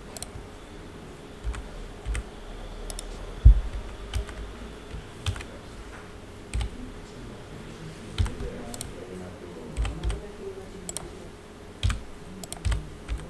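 Scattered clicks and taps of a computer keyboard and mouse working Blender shortcuts, roughly one a second at an irregular pace, the loudest a thump about three and a half seconds in, over a faint steady hum.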